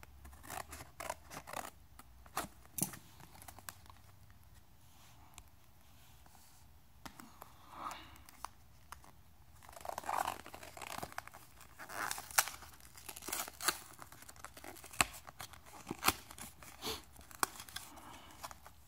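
Scissors snipping through a cardboard-backed plastic blister pack, then the paper backing tearing and the plastic crinkling as the pack is pulled apart by hand: a scattered run of sharp snips and crackles.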